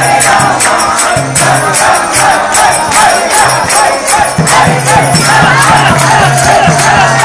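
Kirtan: a group singing a devotional chant together, with hand cymbals clashing in a quick steady beat and a drum underneath.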